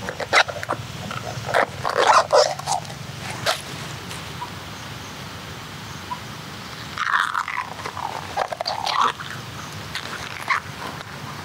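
An animal calling in short, irregular whines and yelps that bend up and down in pitch, in two clusters: one about two seconds in and a longer one near eight seconds. A few sharp clicks or knocks come in between.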